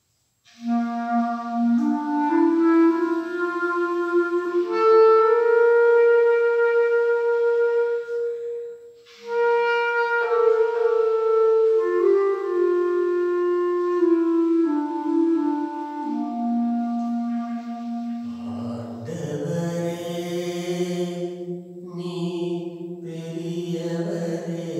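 Clarinet playing a slow solo melody of long held notes, with a brief pause for breath about nine seconds in. Some six seconds before the end the clarinet stops and a man's voice takes up a chant.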